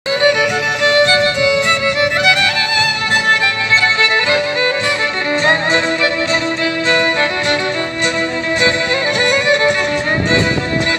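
Busker's violin playing a melody of held, bowed notes that step up and down in pitch, without a break.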